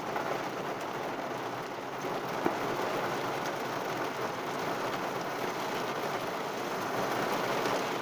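Heavy rain falling on a car, heard from inside: a steady, even hiss, with one sharp tap about two and a half seconds in.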